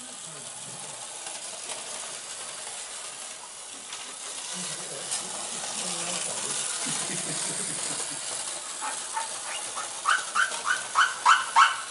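A 1950s French Hornby O gauge electric locomotive running on tinplate three-rail track. Its motor and wheels make a steady whirr that grows louder. Near the end comes a quick series of sharp clicks, about four a second. The 20-volt locomotive is running under light load on the roughly 16 volts from an old Triang controller.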